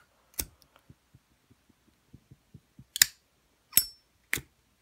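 Zippo lighter being handled: four sharp metallic clicks of its hinged lid flipping open and snapping shut, one of them with a brief high ring.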